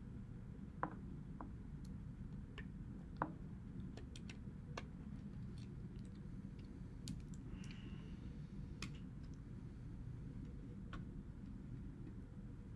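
Scattered small clicks and taps from handling an iPod's parts during repair work, irregular, with the two sharpest about one and three seconds in, over a steady low hum.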